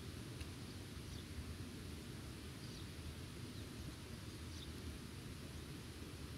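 Outdoor wind ambience: a steady low rumble of wind on the microphone under a soft hiss, with a few faint, brief bird chirps scattered through.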